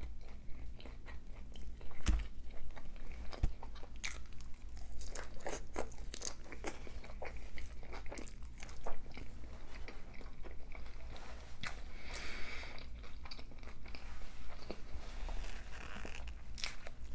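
Close-up mouth sounds of eating birria tacos: crunchy bites and wet chewing, with many small clicks and crackles.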